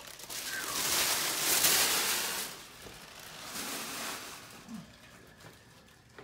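Packaging rustling and scraping as a large statue base is handled, loudest for the first couple of seconds, then fainter and fading away.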